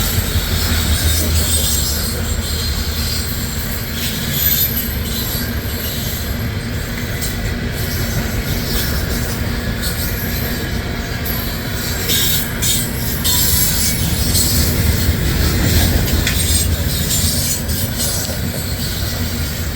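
Freight cars of a passing train rolling by: a steady rumble of steel wheels on rail, with faint high wheel squeal and scattered clicks.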